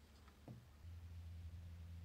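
Near silence. A faint, steady low hum sets in about a second in.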